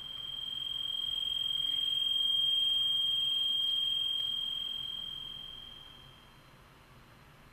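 A single high-pitched pure electronic tone, held steady in pitch, swelling up slowly and then fading away over about six seconds.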